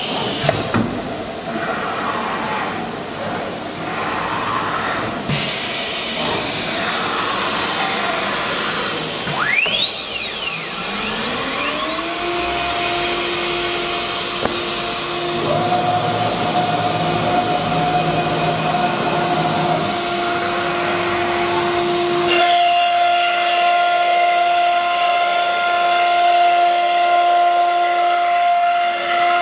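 Woodworking CNC router spindle spinning up with a steep rising whine about ten seconds in, then running at a steady high whine over a continuous hiss of machine noise.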